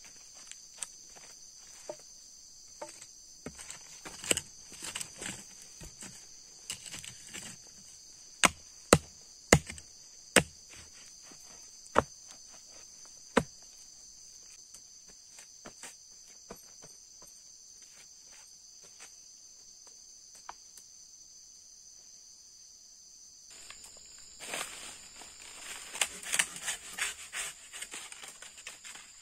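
A wooden post being set in the ground: a string of sharp, well-spaced knocks as the earth around its base is packed down, over a steady high insect chorus. Near the end, leafy rustling and a run of quick cutting strokes from a long knife hacking at a small tree.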